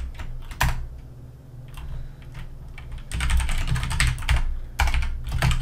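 Typing on a computer keyboard: a few keystrokes, a lull of about two seconds, then a quick run of keystrokes from about three seconds in.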